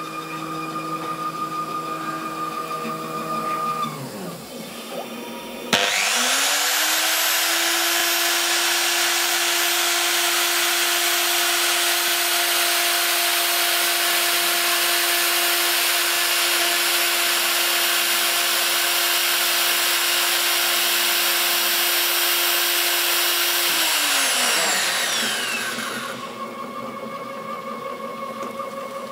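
Homemade CNC milling machine: the stepper motors whine steadily as the axes move, then stop. The router spindle starts with a sudden switch-on, spins up quickly to a steady high whine and runs for about eighteen seconds. It is then switched off and winds down with a falling pitch, after which the softer stepper-motor whine comes back.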